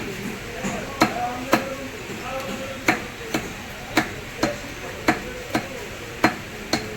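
Repeated chopping strokes of a knife through a large mrigal carp into a wooden cutting block: about eleven sharp, irregularly spaced knocks, roughly two a second.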